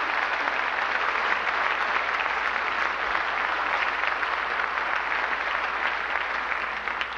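Audience applauding: a steady, dense patter of many hands clapping that begins to die away near the end.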